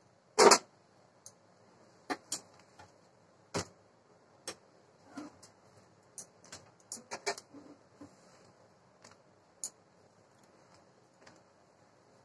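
A banana leaf crackling and rustling as it is handled and turned over a gas burner to soften it, in scattered sharp clicks with one louder crackle about half a second in.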